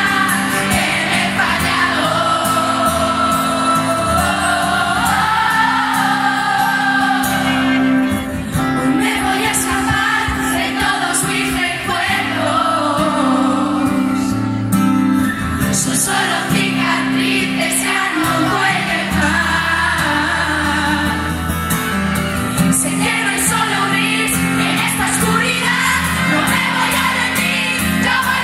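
Female singer performing a Spanish-language pop song live with a band, sung through a concert PA and heard from within the crowd.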